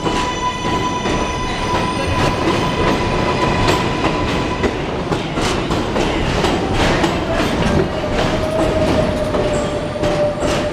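New York City Subway R142A train rolling past along the platform as it pulls into the station, its wheels clicking over the rail joints under a steady rumble. A steady whine runs through it and drops to a lower pitch about two-thirds of the way through as the train slows.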